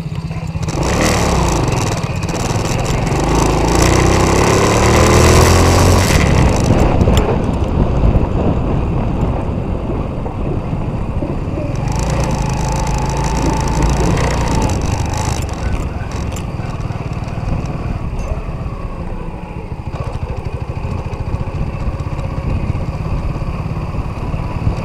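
Small petrol quad bike (Orbita 125 ATV) engine running, revving up and down over the first several seconds, then holding a steadier note with a heavy rumble underneath.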